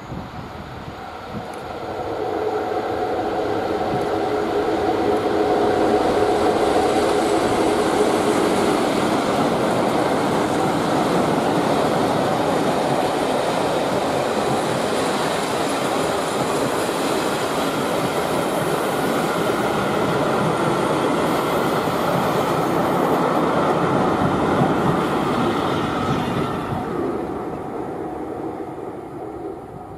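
Double-headed Class 47 diesel locomotives, twelve-cylinder Sulzer engines, coasting past with a long train of coaches rolling by behind. The train noise builds over the first few seconds, holds steady, then fades away near the end as the train recedes.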